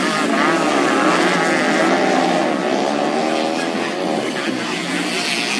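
Several racing motorcycle engines revving together, their pitch rising and falling as the bikes race past over the dirt track.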